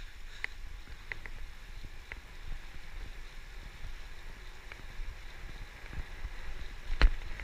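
Low wind buffeting and road rumble on a bicycle-mounted camera while riding, with a few light clicks and a sharper knock about seven seconds in.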